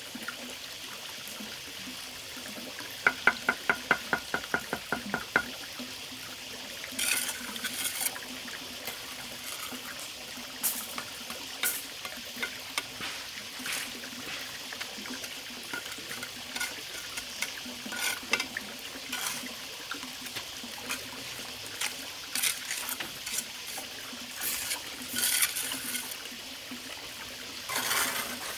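Water trickling and splashing, with a quick run of about ten sharp taps about three seconds in.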